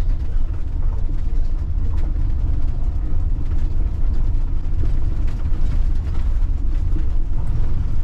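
Hymer MLT 580 4x4 camper van driving slowly on a dirt road, heard from inside the cab: a steady low rumble of engine and tyres, with occasional knocks and rattles from the bumps.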